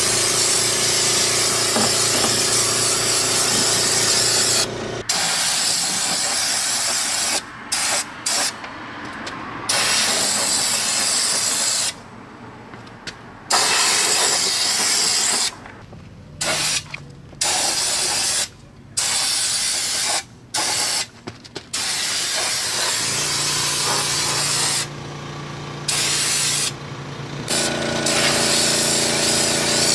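Air-powered siphon undercoating spray gun hissing as it sprays undercoating at about 80 PSI, cutting off and starting again about ten times with short pauses between bursts. A low steady hum sits under the hiss at the start and again near the end.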